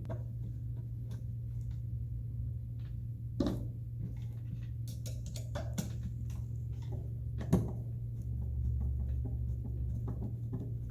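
Short clicks and knocks of plastic toy dollhouse parts being handled and screwed together, with two louder knocks at about three and a half and seven and a half seconds in, over a steady low hum.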